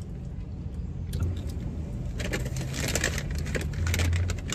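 Paper fast-food wrapper and bag crinkling and rustling as a burger is handled, in irregular crackles that grow busier about two seconds in, over a steady low hum.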